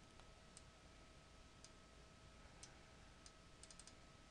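Near silence with faint computer mouse clicks: single clicks about a second apart, then a quick run of four near the end, over a faint steady tone.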